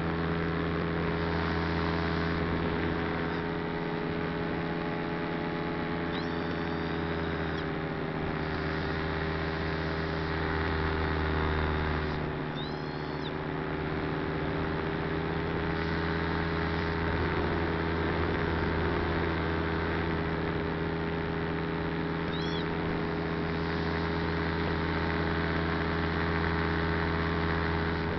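Steady drone of a model aircraft's motor and propeller picked up by its onboard camera, with wind noise. The pitch and level dip briefly about halfway through, and a few short high chirps come through now and then.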